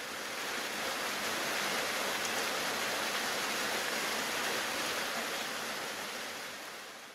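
Small twin waterfall pouring into a rock pool: a steady rushing splash of falling water. It swells up over the first second and fades out near the end.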